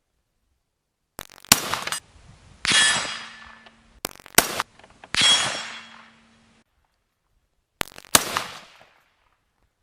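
Three rifle shots about three seconds apart, each with a fainter crack just before it. The first two are followed by the ringing of struck steel targets.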